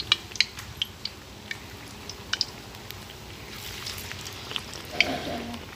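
Gulgule fritters frying in a wok of hot mustard oil, with irregular sharp crackles and pops. A brief voice about five seconds in.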